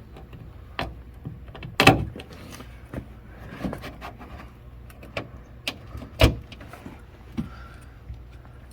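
Plastic push-in clips being pressed by hand through the inner trim panel of a 2008 Chevy Impala's trunk lid: a series of separate sharp clicks and knocks, the two loudest about two seconds in and just past six seconds.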